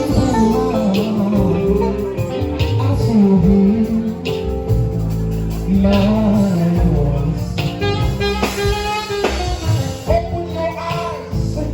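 Music with a singing voice over instruments, with steady bass notes under a wavering melodic line.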